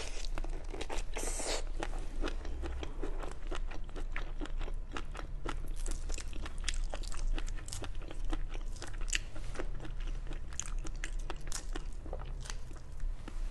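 Close-up eating sounds of biting and chewing a large cooked prawn, with many short crisp crackles and clicks as prawn flesh and shell are chewed and peeled by hand. A louder wet burst comes about a second in.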